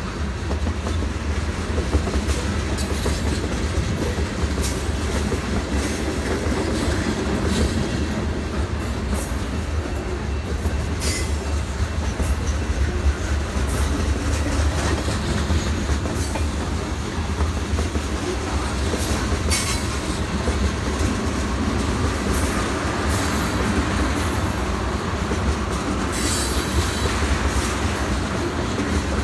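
Freight train of tank cars, covered hoppers and boxcars rolling past: a steady rumble of steel wheels on rail, with clickety-clack over the rail joints and short high wheel squeals now and then.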